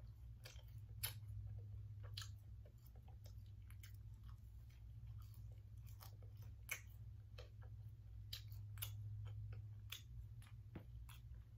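Close-up chewing of french fries, with irregular small crunches and wet mouth clicks over a steady low hum.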